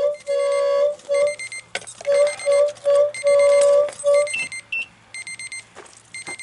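Alarm sounding at one steady pitch in a repeating pattern of short beeps and longer held tones, which stops about four seconds in. The owner says this is how his alarm sounds when it has no air.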